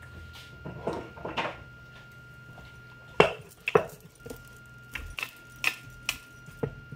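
Dough being rolled out with a rolling pin on a floured wooden board. Soft rubbing of hands on the dough comes first, then sharp knocks as the pin meets the board: two loud ones about three and four seconds in, followed by a run of lighter ones.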